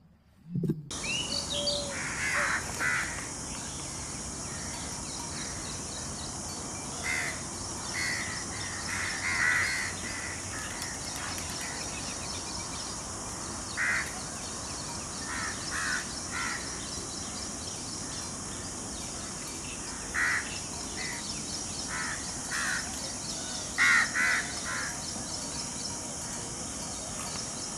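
A bird giving short, harsh calls, singly and in quick pairs every second or few, over a steady high-pitched hiss.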